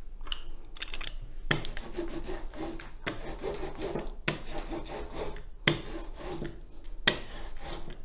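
A diamond painting roller rolled back and forth over the resin drills of the canvas on a wooden table, a rasping rub with a sharper knock about every one and a half seconds. It presses down drills that have popped up.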